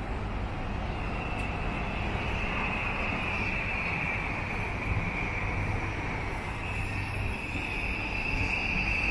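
JR Yamanote Line commuter train running past on the tracks: a steady rumble of wheels on rail, with a steady high-pitched whine over it.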